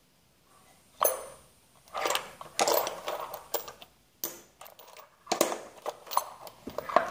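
Small metal tools and loose parts clinking and rattling as they are picked through in a tool chest drawer, in repeated bursts of clatter starting about a second in.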